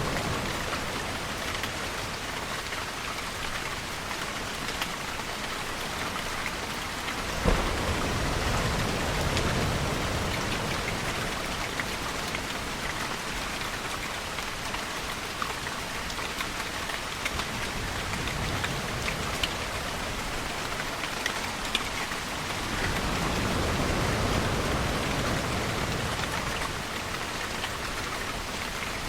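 Steady rain falling and dripping on surfaces, with distant thunder. A sharp crack about seven seconds in is followed by a low rumble, and another low rolling rumble swells and fades near the end.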